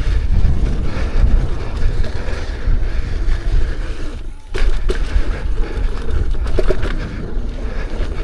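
Wind rumbling on the microphone and the rolling noise of an electric unicycle riding a dirt trail, with a brief lull about four and a half seconds in and a few sharp knocks from bumps after it.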